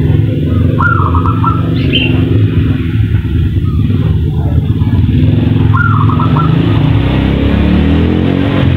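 Zebra dove (perkutut) singing its short, rapid string of coo notes twice, about a second in and again near six seconds, with a brief higher chirp between. Under it runs a loud, steady motor drone that shifts in pitch near the end.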